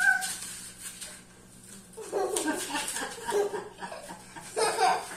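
Children laughing in several short bursts, with a quieter pause about a second in.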